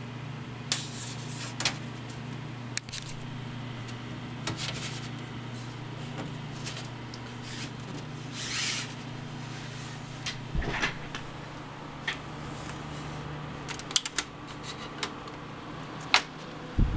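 Corsair Carbide 500R PC case with its large side-panel fan running, a steady low hum. Scattered clicks, knocks and rubbing sounds sit over the hum, with a brief hiss about halfway through.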